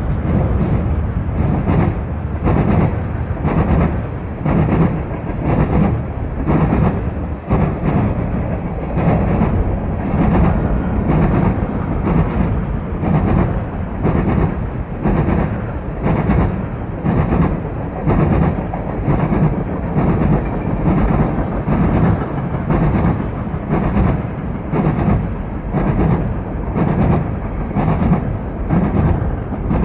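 CN freight train's cars rolling past, a steady rumble with wheels clacking over rail joints in an even rhythm, about one and a half beats a second.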